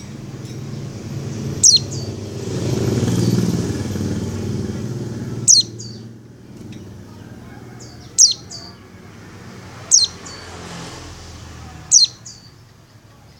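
Female white-eye (pleci) calling, given as a call to draw a male: five sharp, quick falling whistles a few seconds apart, each followed by a short softer note. A passing vehicle swells and fades under the first two calls.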